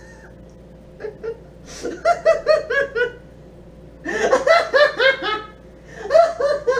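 Male laughter in bursts of quick pulses: a short one about two seconds in, a longer one from about four seconds in, and another starting near the end.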